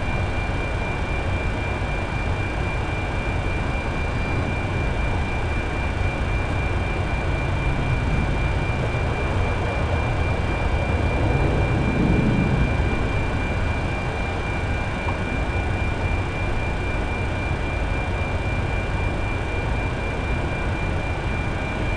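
Steady cabin noise inside a powered Boeing 747 Shuttle Carrier Aircraft: a constant rushing hum with a steady high whine over it. A brief low rumble swells about halfway through.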